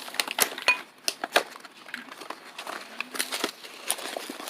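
Plastic toy capsules and wrappers handled and pulled open by hand: irregular sharp clicks, snaps and crinkles.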